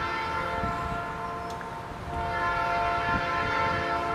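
Air horn of a Norfolk Southern GE C40-8 diesel freight locomotive sounding a steady chord: one blast ending about two seconds in, then after a short break a second, longer blast.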